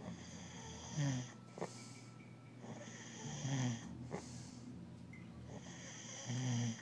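A person snoring in a slow rhythm: three loud, low snores about two and a half to three seconds apart, with a breathy hiss before each.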